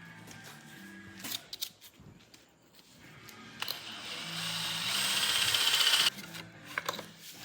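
A power tool runs for about two and a half seconds, getting louder, then cuts off suddenly; a few sharp metal clicks come before it.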